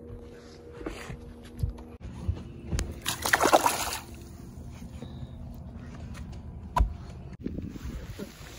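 A hooked largemouth bass thrashing at the water's surface, splashing, loudest in a burst about three seconds in, with a few dull knocks.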